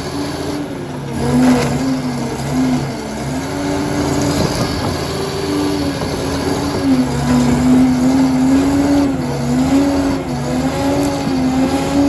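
Liebherr PR 746 crawler dozer's diesel engine running under working load, its pitch dipping and recovering several times.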